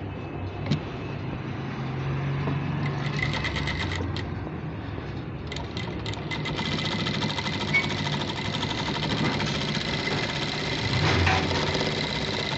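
Juki industrial sewing machine stitching through cloth: a short run of fast, evenly repeating needle strokes about three seconds in, then a longer run from about six and a half seconds on, over the motor's low hum.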